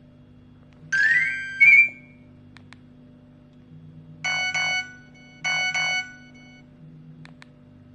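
Nokia 105 (2013) ringtones played through the phone's small speaker. A short rising electronic tone comes about a second in; then a bright two-part chime phrase plays twice, around four and five and a half seconds in. There are faint clicks in between.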